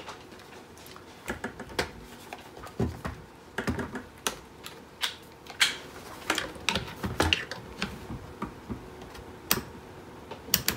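Irregular clicks and knocks of handheld multimeters being handled on a wooden desk: plastic meter cases lifted and set down, and test-lead plugs pushed into the input jacks. Near the end, the TY530's rotary range switch is turned.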